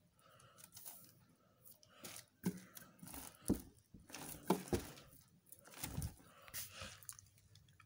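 Plastic film wrapping crinkling and rustling as a hand handles a plastic-wrapped speaker cabinet in a cardboard box, with several dull knocks in the middle.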